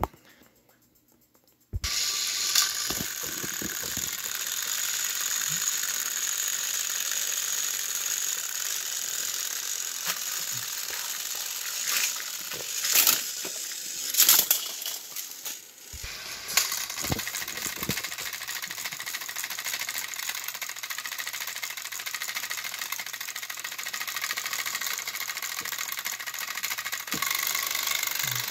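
Battery-powered Thomas & Friends toy train engines running on plastic track: a steady, high-pitched gear whir with rattling that starts suddenly about two seconds in, with a few sharp clacks around the middle.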